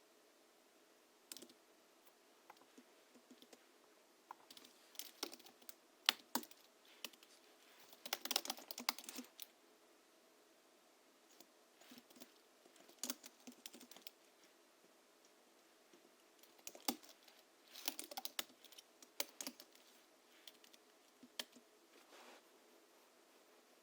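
Typing on a Hansung GHL-5X keyboard modded with lubricated springs and 50 g rubber domes: irregular bursts of keystrokes with pauses of a second or more between them.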